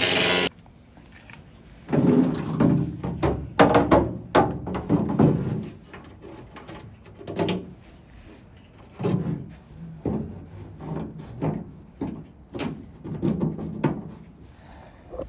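Fiberglass car bumper panel being handled and pushed into place. It gives irregular clusters of hollow knocks, clunks and rattles with short pauses between them.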